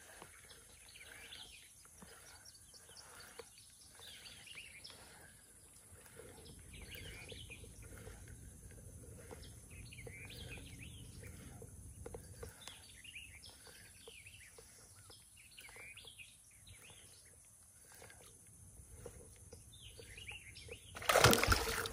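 Wild birds singing around a pond, many short chirps and phrases following one another. Near the end a sudden loud splash breaks in, where a fish strikes the lure at the surface.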